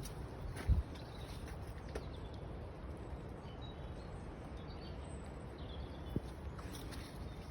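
Faint bird chirps, a few short high notes midway, over a steady low rumble, with one low thump about a second in.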